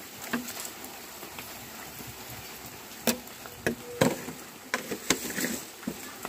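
A cooking spoon knocking and clinking against the pan of semolina about seven times, sharp short strikes with a brief ring, most of them in the second half, over a faint steady hiss.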